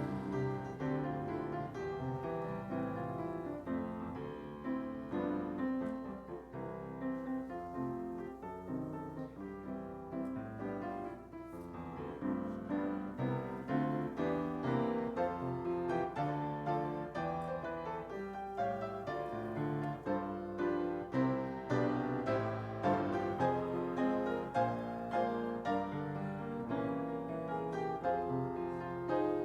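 Piano playing a continuous flow of notes and chords, quieter around the middle and growing louder in the second half.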